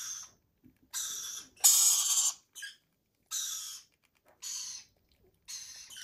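Baby rainbow lorikeet's food-begging calls while being spoon-fed: about seven harsh, hissing rasps, roughly one a second.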